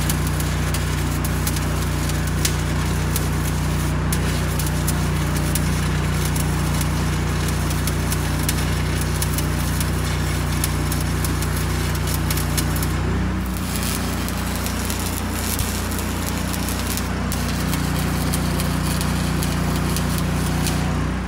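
Electric arc welding on the steel underbody of a bus: a steady sputtering crackle over a low hum.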